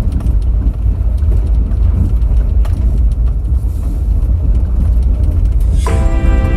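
Low, steady rumble of a car driving, with a few faint clicks. Background music comes in near the end.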